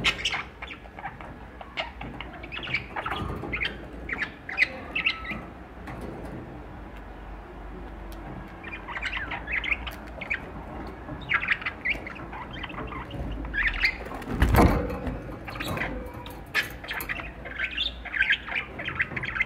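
Budgerigars chirping and chattering in quick short notes, in bursts with a thinner stretch a few seconds before the middle. A short loud rustling noise comes about two thirds of the way through.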